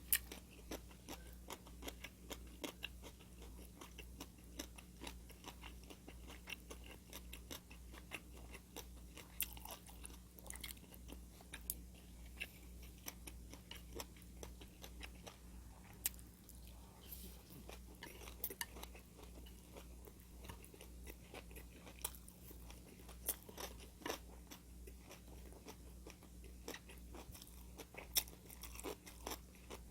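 Close-miked eating: a person chewing and biting food, with crunches and many short sharp clicks, over a low steady hum.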